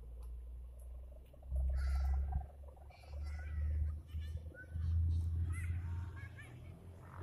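Wind buffeting a phone microphone in gusts, a deep rumble that swells and fades several times, with faint wavering high calls over it.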